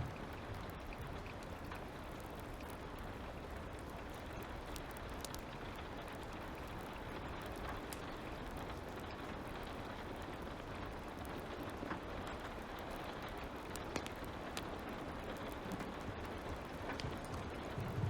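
Light rain ambience with a fire crackling: a steady soft hiss of rain with scattered sharp pops and clicks.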